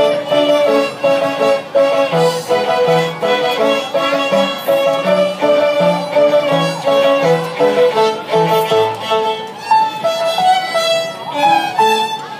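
A group of young beginner violinists playing a simple tune together in unison, with a steady repeated low note underneath.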